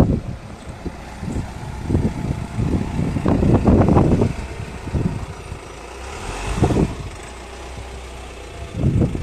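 Honda Jazz hatchback's engine running at low speed with uneven low rumbles as the car rolls up a dirt lane, settling to a steady, quieter idle near the end once it has stopped.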